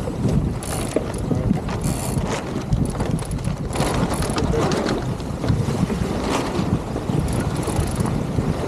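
Steady wind rumbling on the microphone aboard an Express 27 sailboat under way, with a few brief ticks and knocks now and then.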